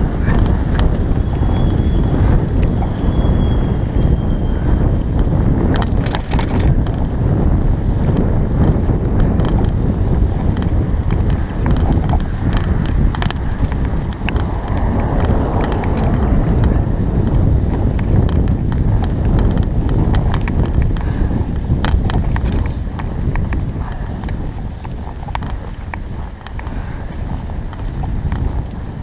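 Heavy wind rumble on the camera microphone of a bicycle ridden through fresh snow, with scattered small clicks and rattles. It eases a little near the end.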